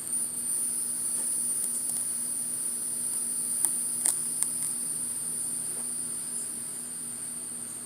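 Steady high-pitched chirring of insects such as crickets, over a faint low hum of honeybees at the open hive. A few light clicks of the hive's wooden bars being moved come about halfway through.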